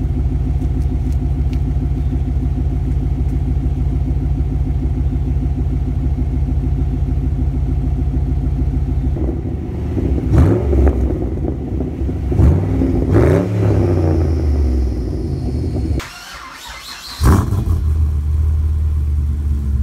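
Pontiac GTO V8 exhaust, through long-tube headers, catless mid-pipes and an X-pipe, idling steadily, then revved several times with the pitch rising and falling. Near the end it drops away briefly, comes back with one loud blip of the throttle, and settles to idle.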